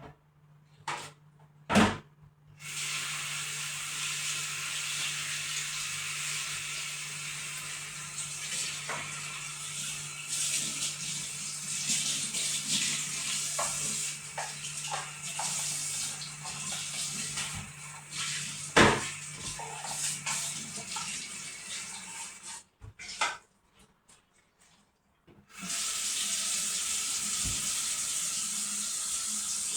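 Tap water running into a sink, with scattered knocks and clinks of items being handled. The water is turned off a little over twenty seconds in and turned back on a few seconds later.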